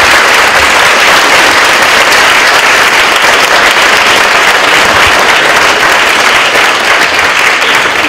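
Audience applauding, loud and steady throughout.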